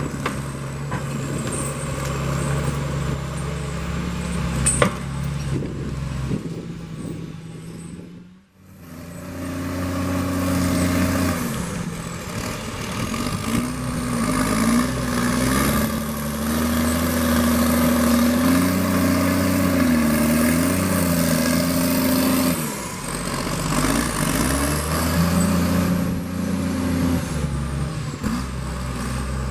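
Heavy logging machine's engine running under load, its revs rising and falling. The sound drops out briefly about eight seconds in, then returns at higher revs and settles lower a few seconds before the end.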